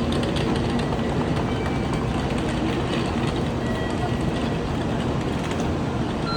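Shinkansen bullet train running: a steady, loud rushing rumble.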